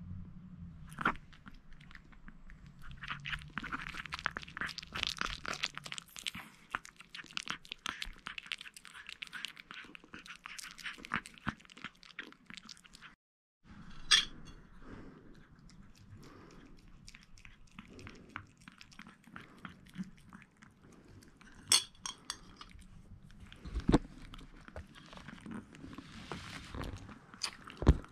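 A Chihuahua chewing a bite of cream-filled sponge cake taken from a hand, a busy run of small wet chewing clicks. Then a metal fork clinks sharply against a plate a few times.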